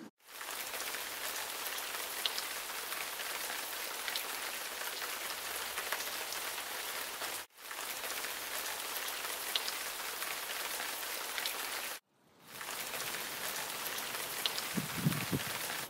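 Liquid poured onto a concrete block, a steady spattering hiss like rain on a hard surface that breaks off abruptly twice. Near the end a few low splashes come in.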